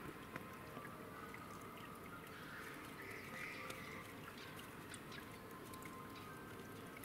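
Faint steady outdoor background noise with scattered light ticks, and a brief faint higher-pitched sound a little before the middle.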